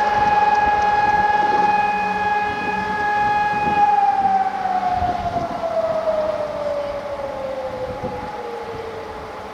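Fire-brigade alarm siren sounding one steady tone, then from about four seconds in its pitch falls slowly and its sound fades as it winds down.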